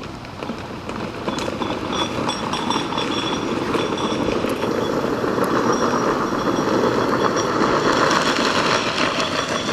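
Hard plastic wheels of a ride-on toy car rolling down a paved hill: a rough, grinding rumble that grows louder as it comes closer, with a faint high squeak over it, then eases off near the end.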